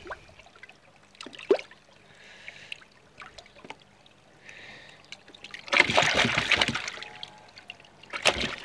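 Water splashing and sloshing in a shallow plastic tub as a koi is held and turned over by hand. A sharp splash comes about a second and a half in, and a longer stretch of loud splashing about six seconds in.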